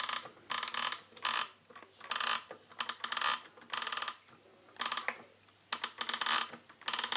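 Flip-number leaves of a 1972 Sony TFM-C590W Digimatic clock radio clattering over in quick bursts of clicks, about one burst a second, as the time is wound forward by hand.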